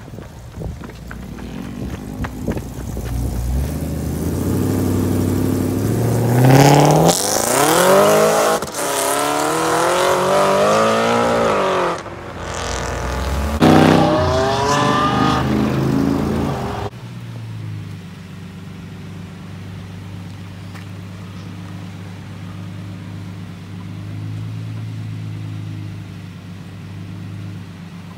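A sports car's engine revving hard as it accelerates away, its pitch climbing and dropping back several times through the gears. After a sudden cut, a Lamborghini Murciélago's V12 runs steadily at low revs as it rolls slowly.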